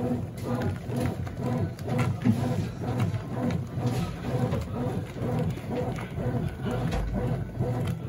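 Consul CWS12 12 kg top-load washing machine agitating a load of jeans on its jeans program: the motor hums and reverses in a steady rhythm of about two strokes a second.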